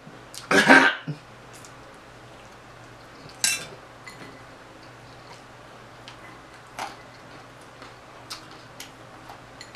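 Fork clinking against small glass dishes a few separate times while eating, sharpest about three and a half seconds in. A brief vocal sound comes just after the start.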